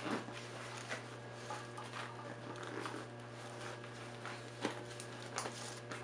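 Fabric backpack being handled and packed: scattered rustling of the bag's fabric and straps against papers, with a few sharp little taps.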